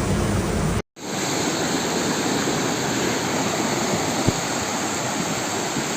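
Flooded stream rushing in spate, a steady loud wash of water noise. It cuts out to silence for a moment just under a second in, then carries on.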